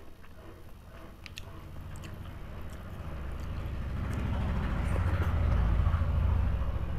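A low engine rumble builds from about a second in and is loudest near the end, like a motor vehicle drawing near. In the first few seconds there are faint clicks of fingers mixing rice on a plate.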